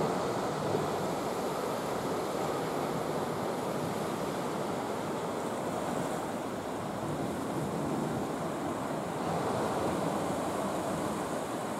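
Steady rush of sea surf breaking over a rocky reef and washing against the breakwater, with some wind noise.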